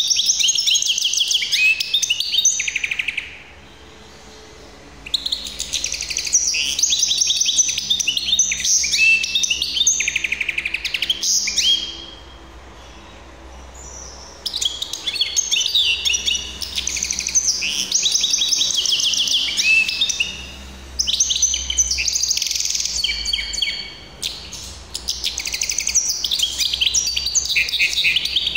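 A caged linnet × canary hybrid (mule) singing: long phrases of fast, high trills and twittering, broken three or four times by pauses of a second or two.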